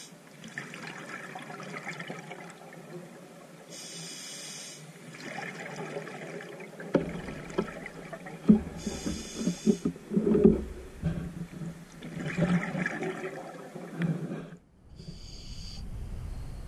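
Scuba diver breathing through a regulator underwater: a short hiss of inhalation three times, roughly every five seconds, each followed by a longer gurgling rush of exhaled bubbles, loudest in the middle.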